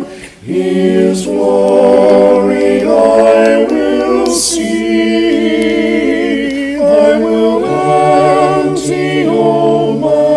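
A cappella hymn sung by layered men's and young voices in multi-part harmony, with no instruments. The chords are held and move along, with a short break in the singing just after the start.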